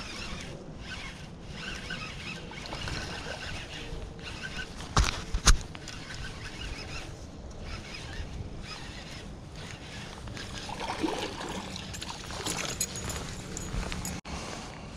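Fishing tackle being handled close to a body-mounted camera: rustling and small clicks of pliers and a reel, with two sharp clicks about half a second apart near the middle.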